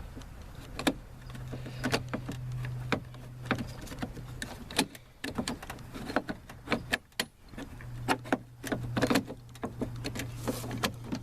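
Hand work on a truck's plastic exterior door handle and its linkage inside the door: a series of sharp clicks, taps and rattles as the parts are handled and worked loose. A steady low hum comes and goes underneath.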